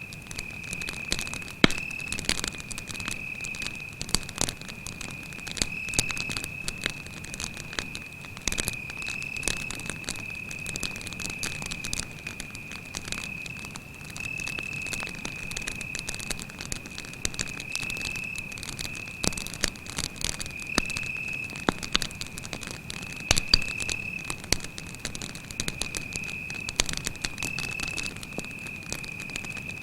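Campfire crackling, with sharp pops at irregular intervals, over the steady, unbroken high trill of crickets.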